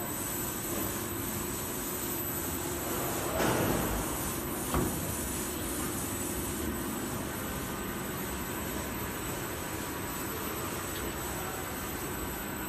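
Cold-roller paper laminating machine running steadily, its rollers and conveyor turning. A brief swell of noise comes about three and a half seconds in, and a single sharp knock about a second later.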